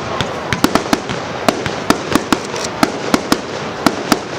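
Fireworks going off: a rapid, irregular string of sharp bangs, several a second, over a continuous hiss of crackling and rumble.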